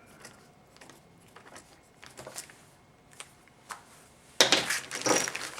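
Small metal parts and hand tools being handled on a workbench: a few light clicks, then a loud metallic clatter with a little ringing, lasting about a second, near the end.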